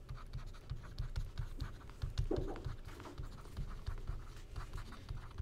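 Stylus writing on a tablet screen: a quick, irregular run of light scratchy ticks over dull low knocks as the pen tip strikes and drags across the surface. A brief low sound stands out about two seconds in.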